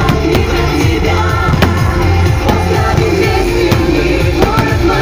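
Loud pop music with a singing voice and a steady bass, with several sharp firework bangs cutting through at irregular moments.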